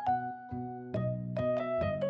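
Background music: a light, cheerful keyboard tune with notes struck in a steady rhythm over a bass line.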